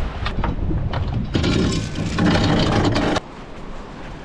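Gear being handled on the floor of an aluminium boat: a few knocks, then about two seconds of loud rustling as a backpack is picked up, cutting off suddenly.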